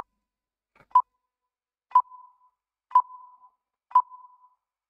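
Quiz countdown-timer sound effect: short electronic beeps of the same pitch, one a second, five in all, marking a five-second answer countdown. A higher-pitched beep begins right at the end as the count runs out.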